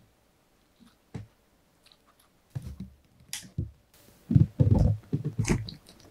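A Pomeranian biting into and chewing a homemade dog waffle, close up: mouth clicks and wet chewing bites that start about halfway in and are loudest near the end.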